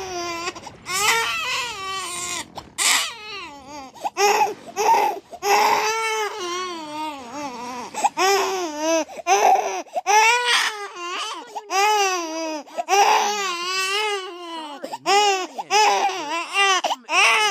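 Baby crying loudly: a string of high wailing cries, each about a second long with a wavering pitch, broken by short catches of breath.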